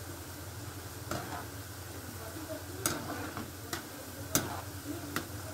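Nimki dough strips deep-frying in refined oil in a pan, a steady sizzle, partway through cooking and not yet browned. A metal spoon stirs them, clicking against the pan about six times, loudest about four and a half seconds in.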